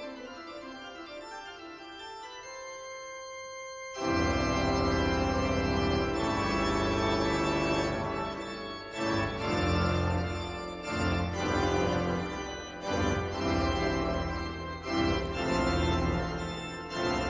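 Organ music: sustained chords played quietly at first, then about four seconds in a fuller, louder passage with deep bass begins, its chords swelling and fading in turn.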